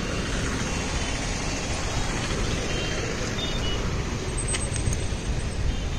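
Steady din of heavy city road traffic, motorbikes, auto-rickshaws and cars running on a crowded main road below, with wind rumbling on the microphone.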